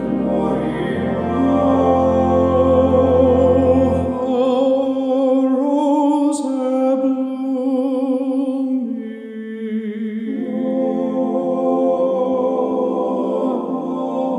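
Vocal arrangement of a Christmas hymn: several sung voices in harmony with vibrato, over a low sustained bass note that drops out about four seconds in.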